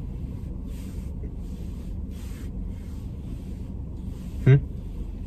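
Steady low hum in a car cabin, with faint hiss coming and going above it, and a brief low murmur from a person about four and a half seconds in.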